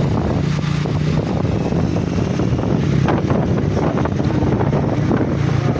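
Engine of a large road vehicle running steadily with a low hum, with wind buffeting the microphone.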